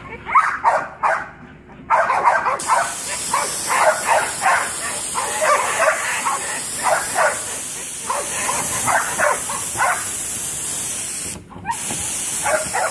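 A dog barking over and over, a couple of barks a second. From about two seconds in, a garden hose's water spray hisses steadily under the barking, cutting out for a moment near the end.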